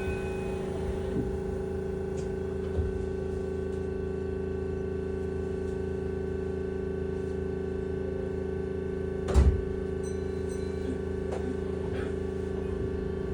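Keihan 3000 series electric train standing with its doors open, giving a steady electrical hum with a few light clicks, and one heavy thud about nine seconds in.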